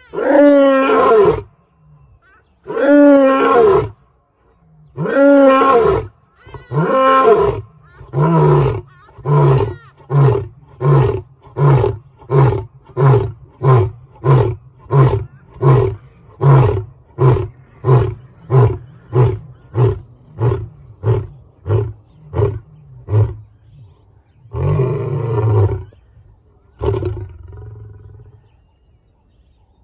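A lion's full roaring bout: four long, loud roars, each dropping in pitch at its end, then a run of about twenty short grunts at roughly one and a half a second that shorten and fade. Two more roars come near the end.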